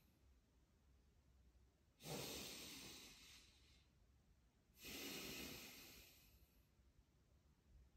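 A person breathing forcefully through a chi gung exercise: two long hissing breaths about three seconds apart, each starting sharply and trailing away.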